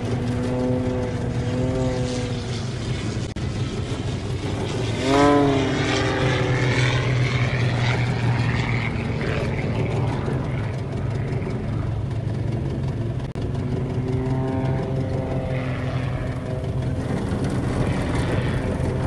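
Small propeller airplane flying low, its engine droning steadily, with the pitch bending up and down as it passes. About five seconds in, a brief, loud pitched sound swoops sharply up and back down.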